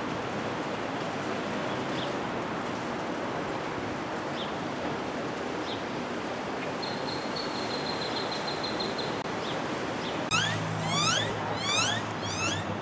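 Steady outdoor noise with birds calling: a quick run of high chirps about halfway through, then repeated rising whistles over a low hum near the end.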